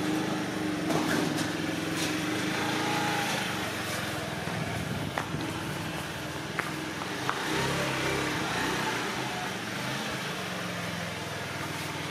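Small motor scooter running steadily as it is ridden, with a few light clicks in the middle.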